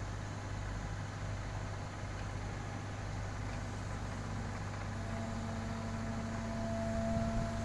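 Heavy diesel engine of construction machinery running steadily at low revs, with a thin steady whine joining about five seconds in and the sound swelling a little near the end.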